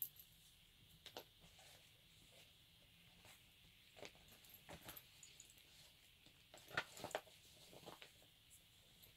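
Faint handling sounds of an IP-5 gas mask's fabric harness straps and metal buckles: soft rustling with scattered light clicks, two sharper clicks late on.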